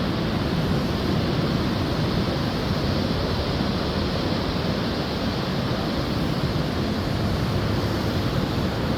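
Steady rushing noise of sea waves breaking on a beach, with wind buffeting the microphone.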